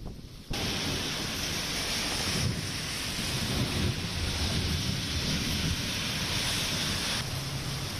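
Steady rain hissing, with wind rumbling on the microphone. It starts suddenly about half a second in and changes level abruptly twice.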